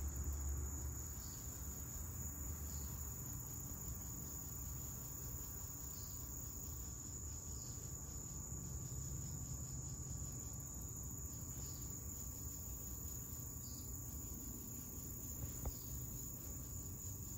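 Steady high-pitched insect chorus, a continuous trill that doesn't let up, over a low rumble, with one faint click near the end.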